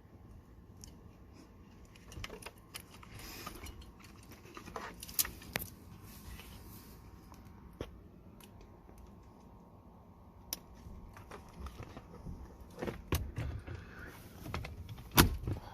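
Scattered clicks, rattles and taps of hands working in a pickup's steering wheel hub, plugging in the airbag connector and fitting the airbag module, with louder knocks near the end.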